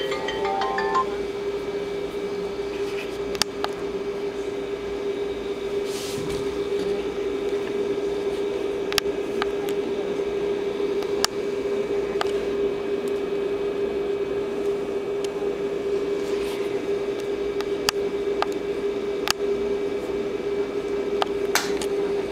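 Steady mechanical hum at one pitch, with a few sharp clicks scattered through it.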